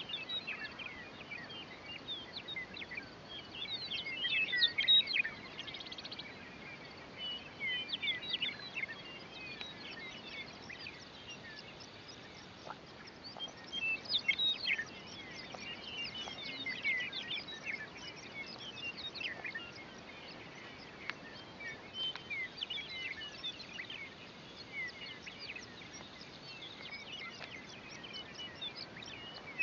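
Meadowlarks singing: short phrases of quick, high, warbling notes repeat every few seconds, loudest about four seconds in and near the end, over a faint steady background hiss.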